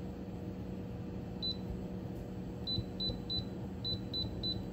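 Touch controls of an electric cooktop beeping as the heat is set for boiling water: one short high beep, then a quick run of short beeps about three a second, over a steady low hum.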